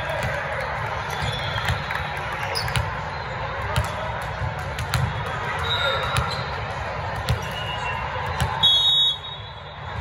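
Volleyballs being hit and bounced, sharp smacks about once a second over the crowd hubbub and voices of a large echoing sports hall. Near the end, a short, loud blast of a referee's whistle.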